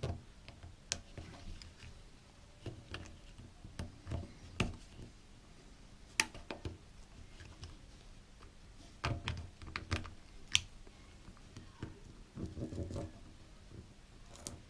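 Small plastic clicks and taps from a GoPro Hero 4 Silver's front cover and face plate being pried at and handled with small pry tools: a handful of sharp clicks several seconds apart, with a few duller knocks.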